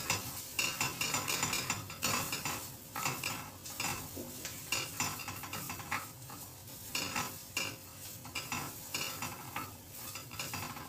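Curry paste sizzling in oil in a frying pan while a wooden spatula stirs and scrapes it in quick, repeated strokes against the pan. The paste is being fried a little to bring out its fragrance.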